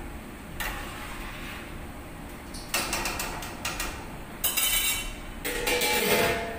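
A spoon scraping and stirring in a wide stainless-steel pan of rice, then a large stainless-steel lid clattering and ringing as it is handled and set on the pan, loudest near the end.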